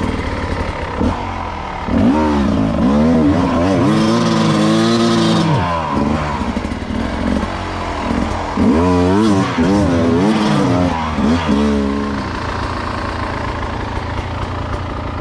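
Beta 300 two-stroke enduro motorcycle engine revving hard and unevenly in two long bursts, about two seconds in and again about eight seconds in, each rising and falling with the throttle before dropping back to a low, steady run.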